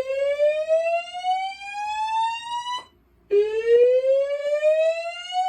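Notifier DVC voice evacuation system's speakers sounding a whoop evacuation tone. One slow rising sweep cuts off about three seconds in, and after a short gap a second rising sweep begins. It is the building evacuation signal, set off by a smoke detector in alarm.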